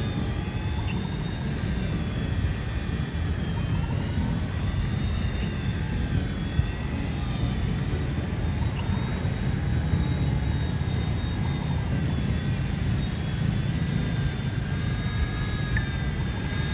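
Small remote-control C186 Pro helicopter in flight: a steady whir of its electric motor and rotors, with a thin whine that drifts slightly up and down in pitch over a low rush of air.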